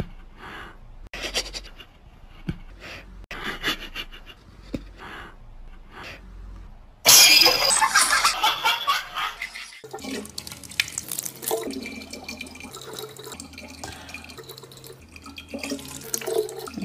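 Soft scattered taps, then about seven seconds in a cat hisses loudly for two or three seconds; after that a thin stream of water runs steadily from a tap.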